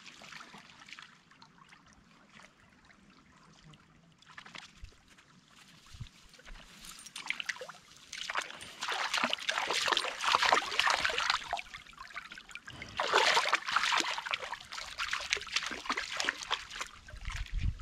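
Shallow creek water trickling over stones, then a pit bull terrier splashing in the water close by, loudest in two spells in the second half.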